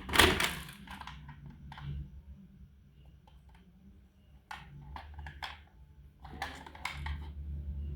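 Toy cars being handled: scattered light clicks and knocks, one louder knock just after the start and a cluster near the end, over a low steady hum.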